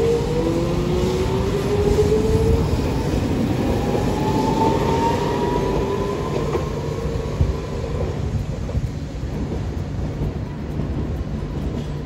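Hiroden 3950-series "Green Liner" streetcar pulling away, its motors whining steadily upward in pitch over the rumble of its wheels on the rails. The whine fades after about seven or eight seconds as the tram draws off.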